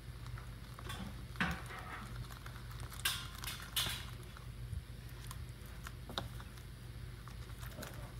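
Sticky glue slime being kneaded and squeezed by hand in a plastic bowl: irregular wet clicks and pops, a few of them sharper, over a steady low background hum. The slime is still sticky and not yet fully activated.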